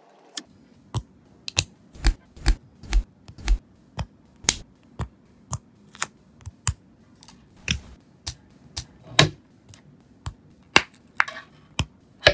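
Lego Technic plastic parts clicking and snapping as they are handled and pressed together: sharp, irregular clicks, about one or two a second, as the link chain and a wheel are fitted.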